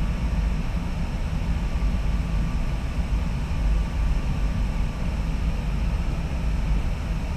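Steady rush and low rumble of airflow around the canopy, heard inside the cockpit of a Duo Discus two-seat glider in flight.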